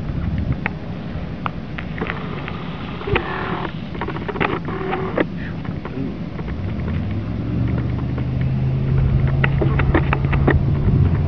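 A vehicle engine idling with a steady low hum, which grows louder and steadier a little past halfway through, with scattered small clicks and knocks over it.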